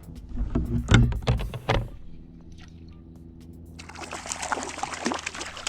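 Water splashing as a hooked rainbow trout fights at the surface: a few loud knocks and splashes in the first two seconds, then a longer stretch of splashing from about four seconds in, over steady background music.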